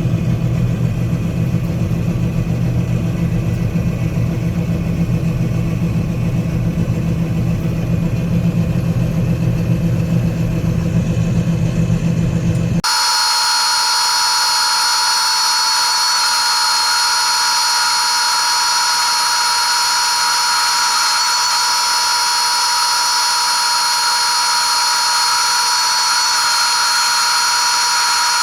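John Deere 9500 combine running steadily with a low engine hum. About halfway through, the sound cuts off abruptly into a steady high-pitched whine with no engine rumble under it.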